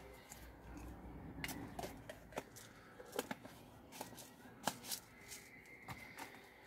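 Scattered small clicks and rustles of hands handling a small plastic jar of fertiliser granules, roughly one sharp click every second.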